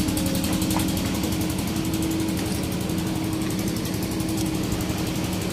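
Prime mover truck's diesel engine running steadily while hauling a bridge girder, an even low hum with no change in speed.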